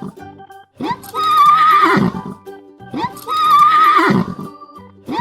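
A horse whinnying twice, about two seconds apart, over background music. Each whinny is a wavering call that drops away at the end, and a third begins just at the close.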